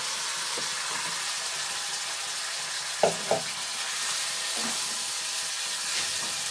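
Chicken and potatoes sizzling in hot spiced masala in a non-stick kadai as they are tipped in and stirred with a wooden spatula, a steady frying hiss. Two sharp knocks come about three seconds in.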